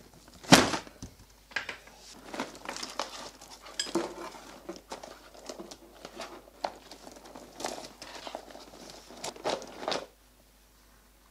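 Hands rummaging through a cardboard box full of wiring harnesses and cables, with plastic connectors and wires clicking, clattering and rustling against each other and the box. There is a sharp rattle about half a second in, and the rummaging stops about ten seconds in.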